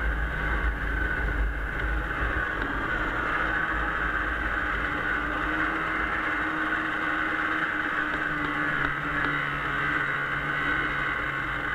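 Arctic Cat Bearcat 340 snowmobile's two-stroke engine running steadily while the sled travels along a snowy trail. A low rumble fades about halfway through, and the engine note shifts slightly about two-thirds of the way in.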